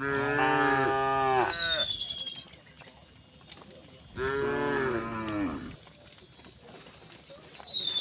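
Cows mooing: three long, drawn-out moos, at the start, about four seconds in, and again near the end, with birds chirping faintly above them.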